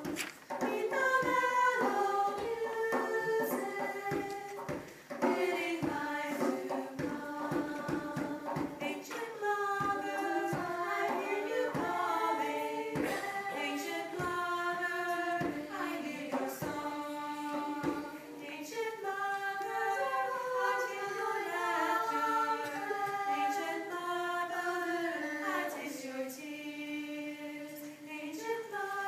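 A small group of women singing a cappella in harmony, several voices at once. Sharp percussive knocks keep a beat under the voices for roughly the first eighteen seconds, then stop and the voices carry on alone.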